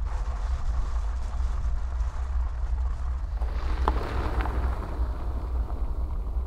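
A car driving past on a gravel track, its tyres crunching over loose stones, loudest about four seconds in with a couple of sharp stone clicks, over a steady low rumble.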